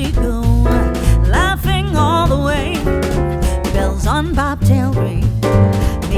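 Background music: a song with a sung vocal line over bass and drums.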